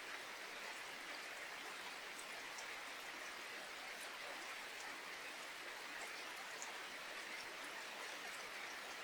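Steady rainfall with a dense patter of drops and scattered sharper drip ticks.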